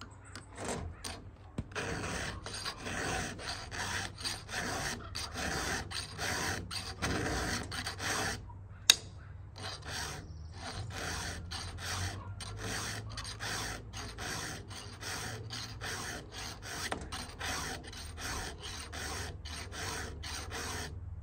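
Round chainsaw file rasping back and forth across the cutter teeth of a saw chain in a steady run of short strokes, sharpening the chain by hand. A single sharp click stands out about nine seconds in.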